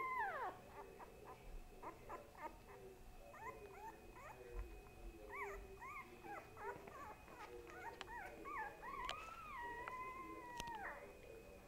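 A pet's high whining calls: a string of short calls that rise and fall, then near the end one long whine of about two seconds that rises, holds and drops away.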